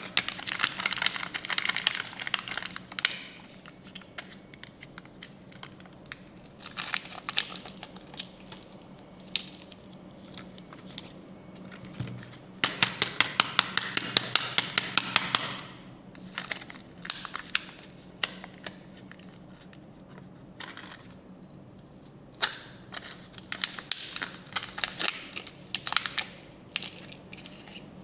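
Candy and toy packaging crinkling and tearing as it is unwrapped by hand, in bursts of a few seconds. About halfway through comes a run of quick, regular clicks, about five a second.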